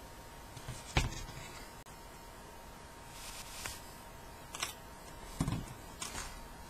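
Scissors and a crochet hook being handled on a tabletop: scattered clicks and taps, the sharpest about a second in, with a duller thump a little past halfway.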